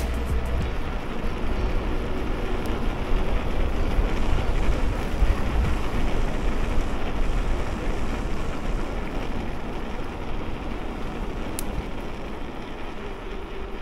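Wind rushing over an action camera's microphone while riding an electric mountain bike along a road, with steady rumbling road noise from the moving bike.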